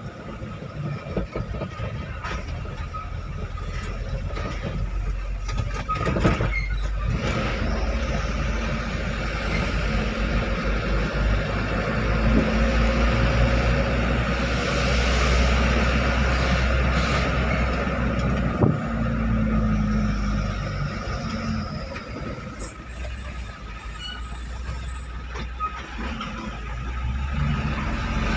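Truck engine running under way, heard from inside the cab, with steady road noise; the engine note rises and falls, and two sharp knocks come from bumps in the road.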